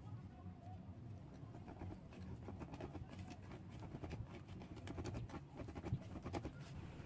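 A wire whisk working a thick flour dough in a bowl makes a faint, irregular patter of soft taps and scrapes. Near the end it gives way to hands kneading the dough.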